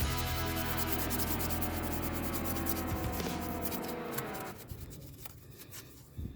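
A brush scrubbing a grimy engine with rapid scratchy strokes, over background music; the scrubbing dies away about two-thirds of the way through.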